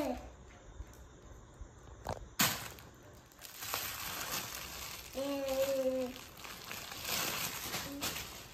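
Clear plastic wrapping crinkling and crackling as a wrapped toy is grabbed and handled, with two sharp crackles about two seconds in. A baby's short vocal sound comes around the middle.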